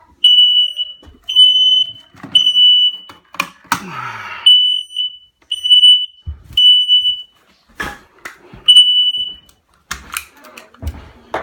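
Smoke alarm sounding in its full alarm pattern: loud, piercing high beeps about half a second long in groups of three, each group followed by a short pause. Over the beeps come a few knocks and a brief rustle about four seconds in.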